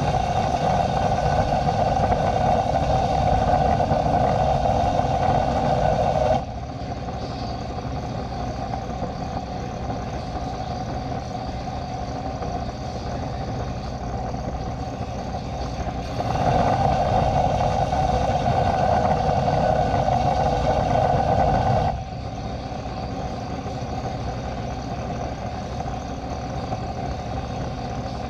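Steady machine noise with a low roar throughout. A louder, higher hum cuts in and out abruptly: on for about six seconds at the start, off, then on again for about six seconds past the middle.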